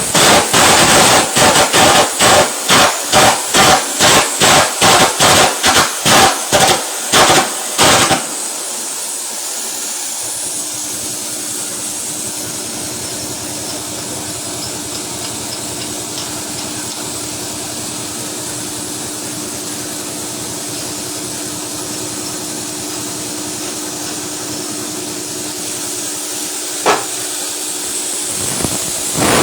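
Rapid, evenly spaced hammer blows, about twenty of them, stopping about eight seconds in. After that comes a steady hiss with a faint low hum, broken once by a single click near the end.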